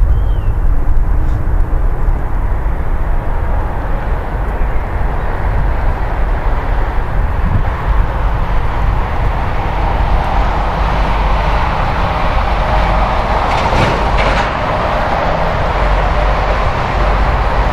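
Boeing 747-400 freighter's four jet engines at takeoff thrust during the takeoff roll: a loud, steady rumble with a deep low end. Its middle range grows louder from about ten seconds in.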